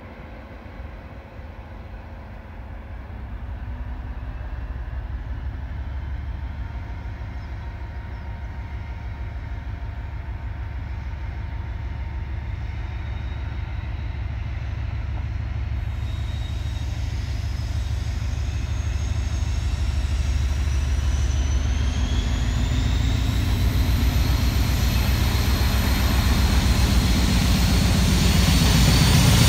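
Class 56 diesel locomotive with a train of tank wagons approaching. Its Ruston-Paxman V16 engine's low rumble grows steadily louder, and high whines that rise in pitch join in over the second half.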